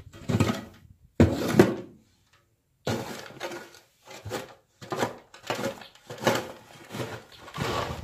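Irregular scrapes and knocks of a metal scoop shovel working in a wooden feed bunk, with footsteps, about one to two strokes a second and a brief silent gap about two seconds in.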